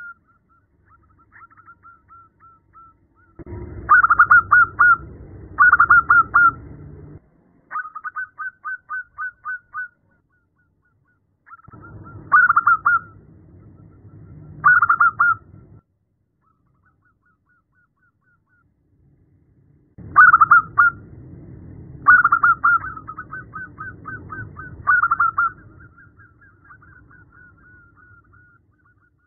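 Female zebra dove calling to attract a male: repeated phrases of rapid staccato cooing notes, some loud, some faint and trailing, with short pauses between phrases. A low rumble sits under the louder phrases.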